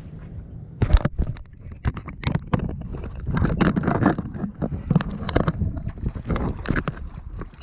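Irregular knocks, taps and rubbing close to the microphone, starting about a second in and continuing densely, over low wind rumble on the microphone: handling noise as the camera is jostled.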